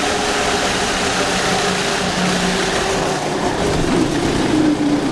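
Off-road go-kart's small engine running under way, its pitch shifting partway through as the throttle changes.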